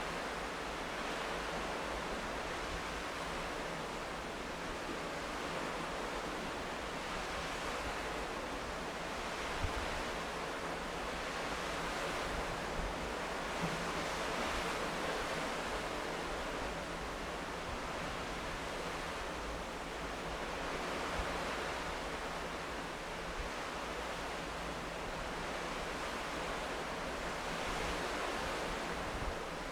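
Steady rushing noise that swells and eases gently every few seconds, with a few faint ticks.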